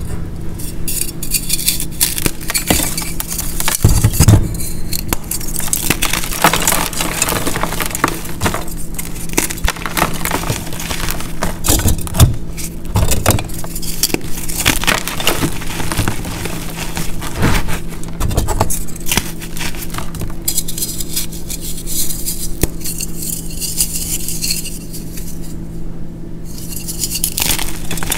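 Pressed blocks of gym chalk mixed with baby powder, corn starch and baking soda being crushed and crumbled in bare hands. The sound is crisp, dense crunching and crackling, with heavier soft thuds as chunks break and fall, several times along the way.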